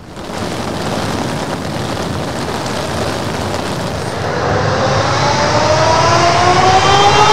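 Boeing 777 freighter's GE90 jet engines on the runway: a steady roar starts abruptly, then from about four seconds in a rising whine climbs in pitch and grows louder as the engines spool up.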